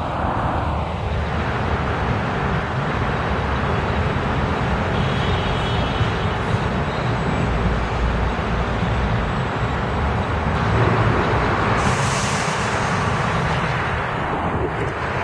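New York City subway train running on elevated track: a steady rumble of wheels and motors, with a brief hiss rising higher up about three-quarters of the way through.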